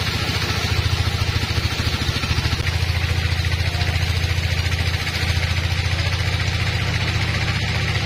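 Band sawmill running: a steady engine-like drone with a rapid low pulse, and a hiss above it.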